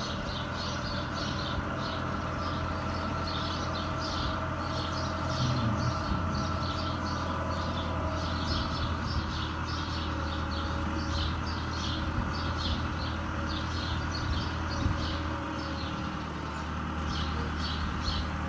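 Fiat 766 DT tractor's diesel engine running steadily while its O.S.M.A. side-arm mower works, a constant low drone with a steady whine above it. Birds chirp repeatedly in short bursts over it.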